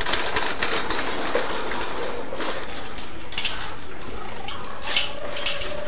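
Light, irregular clatter and scraping of children's plastic toy vehicles being handled, over a steady hiss.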